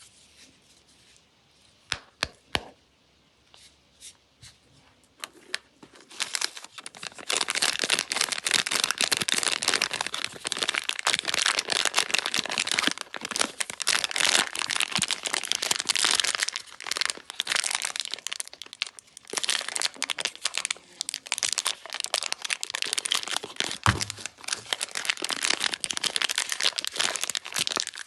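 Soap packaging being unwrapped by hand: a few sharp clicks and taps for the first several seconds, then from about six seconds in, continuous crinkling and tearing of the wrapper.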